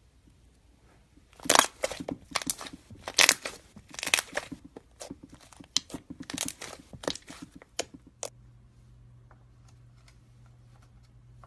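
Slime being squeezed and pressed by hand, giving a quick, irregular run of crackles and crunchy pops that stops about eight seconds in.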